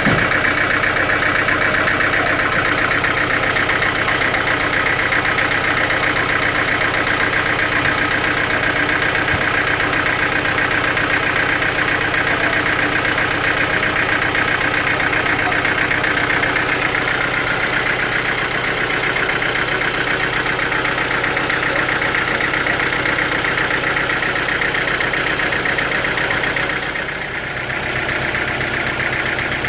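Sawmill machinery running steadily with a constant engine-like drone and a fast, even pulsing, briefly dipping in level near the end.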